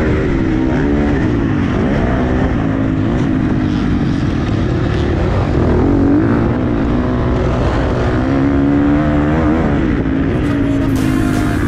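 Motocross bike engine heard close up from the bike itself, revving up and falling back several times as the rider accelerates and shuts off through the corners.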